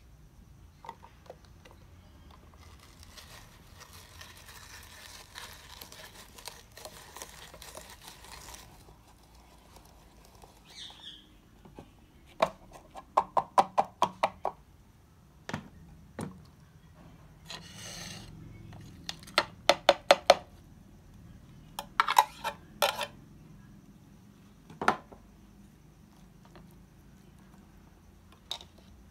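Manual hand-cranked vegetable chopper (red plastic and stainless steel) at work: a rough grinding as its blades chop tomato, potato and green chilli, then several quick runs of sharp, ringing clicks, about five a second, and a few single knocks as the chopper is handled.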